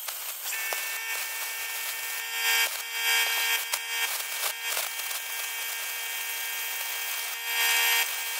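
Plasma cutter cutting through metal plate: a steady hiss with a hum, swelling louder a couple of times.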